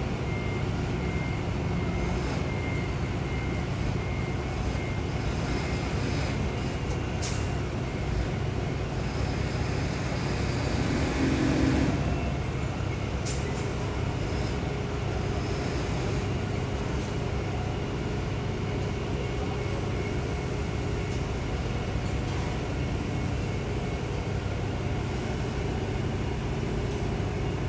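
Steady rumble of heavy vehicles and construction machinery with traffic noise, swelling briefly about eleven seconds in as one vehicle comes closer. A faint repeating high beep sounds in the first several seconds, and there are two sharp clicks.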